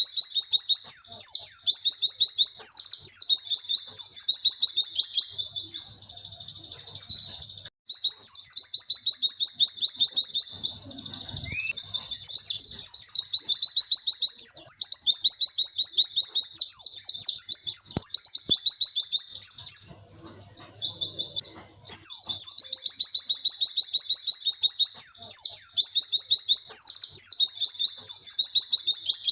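White-eye (pleci) singing a long, clear 'witwit' song: fast, unbroken runs of high chirping notes, pausing briefly twice.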